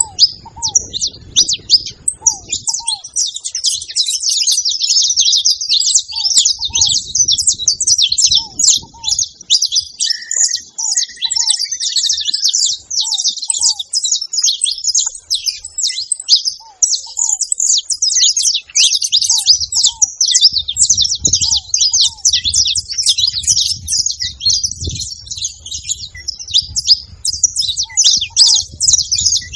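A flock of saffron finches chirping and singing together in a dense, continuous high-pitched chatter. A short buzzy call rises out of it about a third of the way in, and a low rumble comes and goes underneath.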